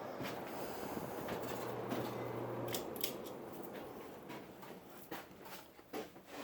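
Casablanca Lady Delta ceiling fan running with a steady motor hum and air whoosh and no bearing noise. About two and a half seconds in the hum cuts off and the air noise fades gradually as the fan coasts down, with scattered light clicks throughout.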